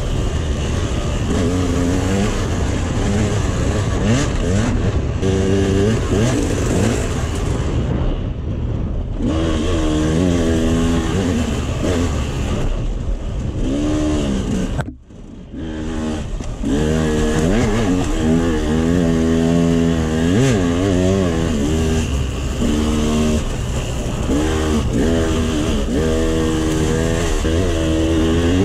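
KTM 200 XC-W two-stroke single-cylinder dirt bike engine revving up and down as the bike is ridden hard off-road, with rushing wind on the microphone. The sound drops away briefly about halfway through.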